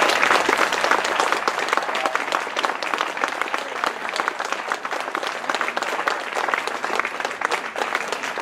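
Audience applauding, loudest in the first second and then holding steady.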